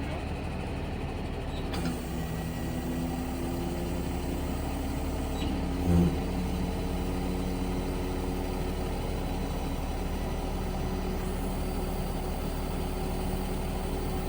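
Diesel truck engine running with its PTO-driven hydraulic pump working the farm-machinery loading ladders. A steady hum runs throughout, a whining tone comes in after a click about two seconds in, and a single thump comes about six seconds in.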